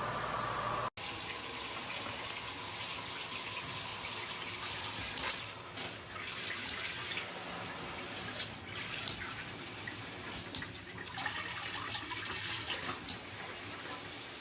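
Water spraying from a handheld shower head, a steady hiss with uneven splashy surges as the spray moves. The sound cuts out abruptly for an instant about a second in.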